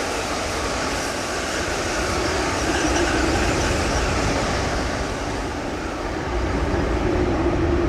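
Steady vehicle noise with a low rumble, growing louder near the end.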